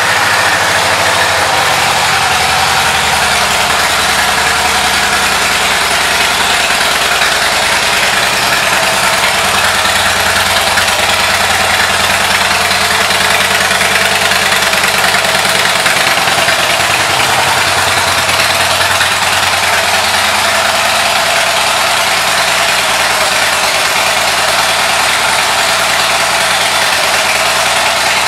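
2009 Harley-Davidson Softail Deluxe's Twin Cam 96 V-twin engine idling steadily.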